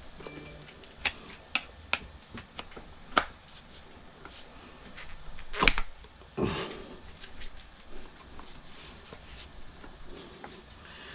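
Irregular clicks and knocks of hand tools against a scooter wheel rim and tyre as the tyre is levered off, with a louder clatter and scrape about six seconds in.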